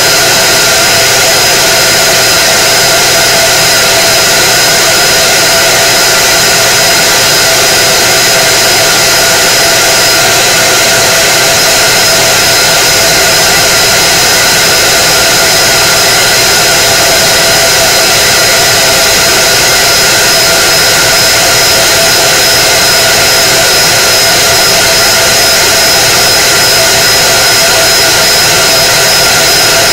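K40 CO2 laser cutter running an engraving pass: a loud, steady whir and hiss of its fans and air pump, with a few steady high tones over it.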